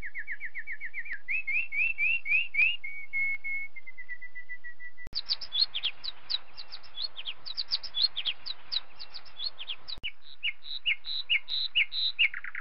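Birdsong of fast, high chirps and trills, in three separate clips that cut off abruptly about five and ten seconds in.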